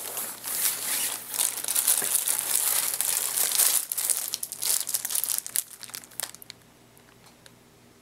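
Crinkling plastic wrap on a bulletproof backpack panel as it is pulled out of a nylon backpack and handled; it stops about six seconds in.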